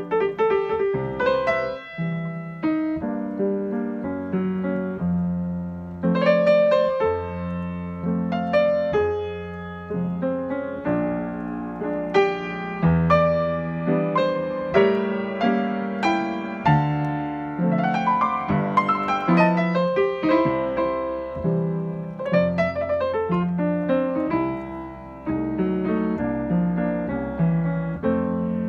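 Yamaha grand piano played with both hands: a gentle piece of chords under a melody, each note struck and left to ring. There is a quick run up and back down about two-thirds of the way through.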